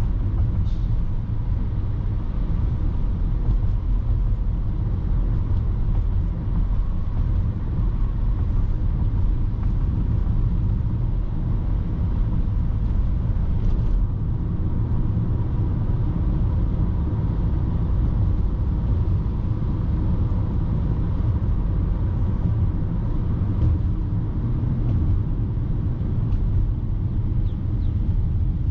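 Car driving at a steady speed on the road: an even, low rumble of engine and tyre noise.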